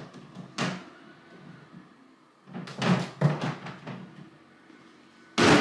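A storage box being shoved onto a high closet shelf, knocking and scraping against the wood, with a short knock about half a second in and a cluster of knocks around three seconds. A sudden loud bang comes near the end.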